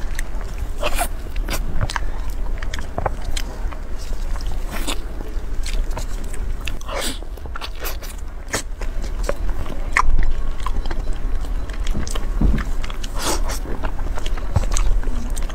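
Close-up mouth sounds of eating a soft, chewy chocolate cream cake with a cocoa filling: bites, chewing and lip smacks, irregular and repeated throughout.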